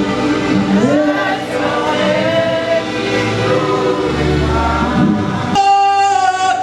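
Gospel choir singing with backing music. About five and a half seconds in, the other parts drop out and a single long note is held.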